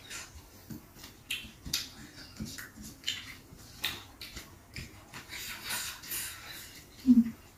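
Wet, sticky clicks and squelches of bare fingers gathering oily stir-fried bitter melon and rice off a banana leaf, with a brief loud low sound near the end.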